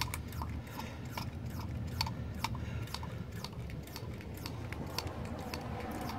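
Hand-operated vacuum pump being squeezed over and over to pull a vacuum on a sealed mason jar of soda, each stroke giving a short sharp click, about two to three a second in a steady rhythm.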